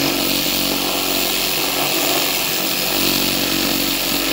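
Reciprocating saw running steadily as it cuts through a wooden board.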